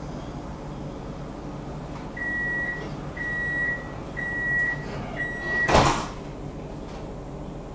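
Tram door-closing warning: four high electronic beeps about a second apart, then a loud thud as the doors shut.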